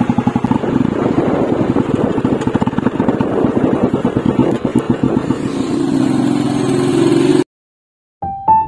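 Royal Enfield single-cylinder motorcycle engine running under way through a customised aftermarket silencer, giving a loud, fast beat of exhaust pulses. It climbs in pitch as the bike accelerates, then cuts off abruptly. Piano music starts just before the end.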